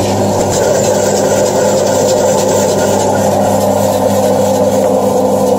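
Electric motor of a GDM-06 food slicing machine running with a steady hum.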